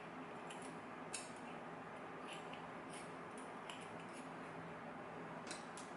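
Faint, scattered small metal clicks and taps, about eight of them, as a lock is taken apart and its tiny pins handled, over a low steady hum.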